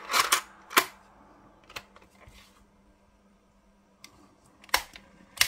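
A series of sharp plastic clicks and handling noises from a FiiO CP13 cassette player as a cassette is loaded and the cassette door is snapped shut. Three clicks come close together in the first second, one more follows, and two come near the end.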